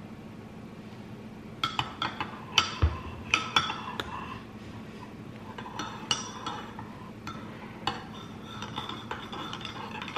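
Metal spoon stirring in a ceramic mug and clinking against its sides, a run of short ringing clinks starting a little under two seconds in and thinning out toward the end. A single dull thump about three seconds in, over a steady low hum.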